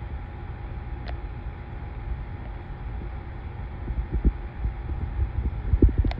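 Low rumble on a handheld phone's microphone, with soft irregular thumps that come more often in the second half, a faint steady hum and one small click about a second in.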